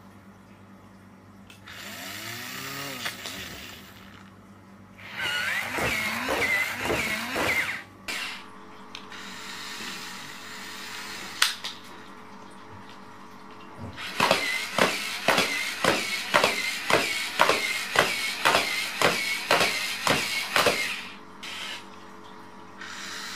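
Toy hexapod spider robot's electric gear motors whirring in several spurts with a wavering whine. The longest run, in the second half, carries a quick, even clicking of about two to three clicks a second.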